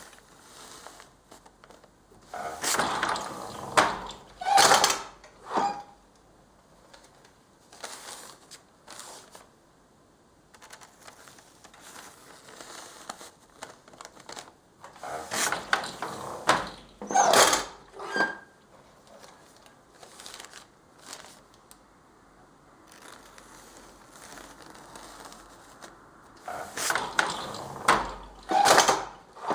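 Hand weaving on a loom with paper weft: paper rustling and crinkling, broken three times, about twelve seconds apart, by loud bursts of several sharp wooden knocks with rustling.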